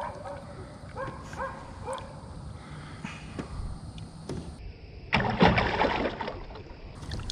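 Water splashing and sloshing beside a boat, a louder rush of about a second starting some five seconds in, with a few small knocks before it.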